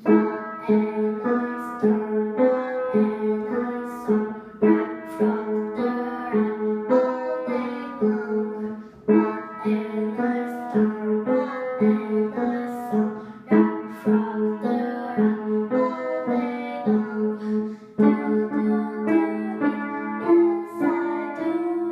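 Upright piano being played: a lively piece with a steadily repeated low note under changing chords.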